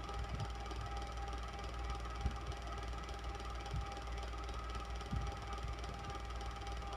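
Electric fan running steadily: a low motor hum with two steady whining tones over it, and a few soft low knocks, the sharpest about two seconds in.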